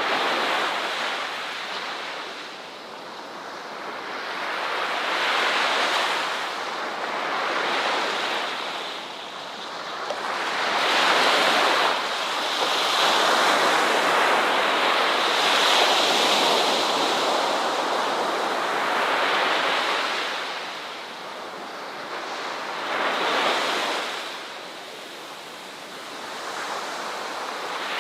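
Ocean waves breaking and washing on a shore, a steady hiss of surf that swells and ebbs in slow surges every few seconds.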